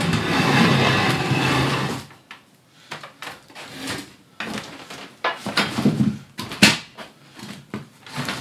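Wooden workbench frames being dragged and set down on a concrete floor: a scrape lasting about two seconds, then a run of wooden knocks and clunks, the sharpest about six and a half seconds in.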